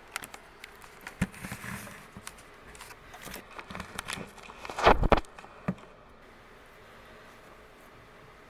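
Light clicks, taps and rustles of hands handling and bending 20 gauge round wire, with a louder clatter about five seconds in.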